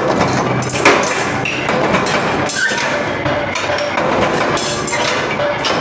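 Plate shearing machine cutting steel plate, with repeated metal clunks, the sharpest about a second in, over a steady workshop din.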